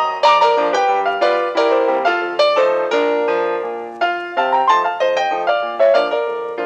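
Background piano music: a steady run of struck notes, several a second, each fading after it sounds.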